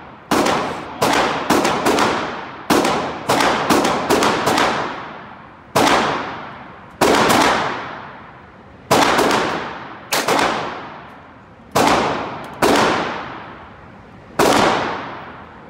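Gunshots in an indoor shooting range, each ringing out with a long echo off the hall. The shots are closely bunched in the first five seconds, then come about every second or two; they are mostly from other lanes, with one .22 LR round fired from a single-shot 12 gauge shotgun through a sub-caliber adapter among them.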